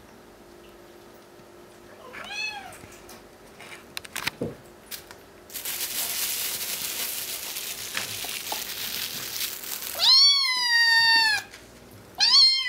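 Bengal kittens meowing for food: a short meow, then several seconds of steady hissing noise, then a long loud meow that holds its pitch and falls away at the end, and another meow starting near the end. The calls are hungry begging for raw chicken.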